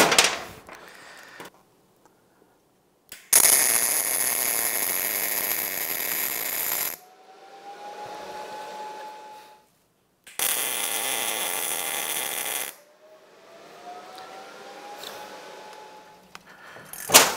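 TIG welder arc hissing in two steady bursts of a few seconds each, tack-welding a nut onto a broken exhaust stud in an aluminium cylinder head. A faint rising tone follows each burst, and a ratchet wrench clicks briefly near the end.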